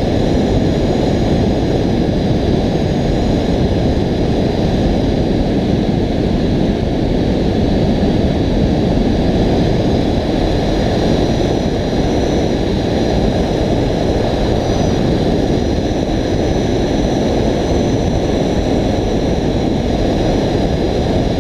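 Steady wind rush from the airflow over the camera microphone of a hang glider in gliding flight, with faint thin high tones held steady above it.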